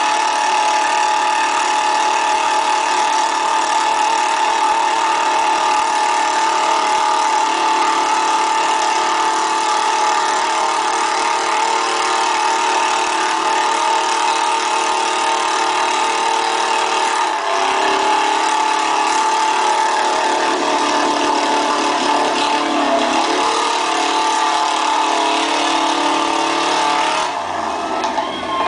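Pickup truck's engine running hard at high revs as it drives through a deep mud bog, with a steady high-pitched whine over the engine note. The revs drop a little over halfway through, and the sound changes abruptly near the end.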